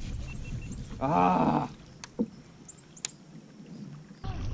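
Baitcasting reel's spool whirring briefly during a cast about a second in, followed by a couple of light clicks.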